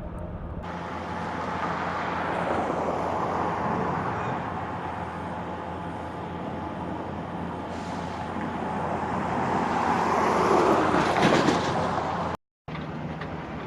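Road traffic passing, a steady rush of tyre and engine noise that swells twice as vehicles go by, the second pass louder. It cuts out abruptly for a moment near the end.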